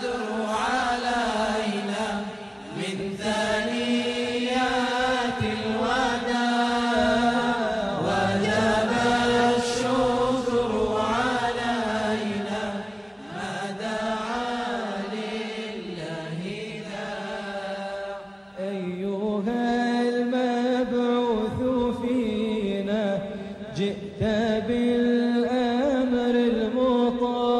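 A single voice chanting unaccompanied in long, held, ornamented notes, with brief breaks between phrases.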